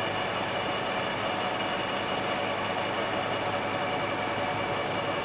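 LeBlond Regal "Servo Shift" engine lathe running under power with its threading feed engaged: a steady mechanical hum and gear whine, with a few constant tones and no change in speed.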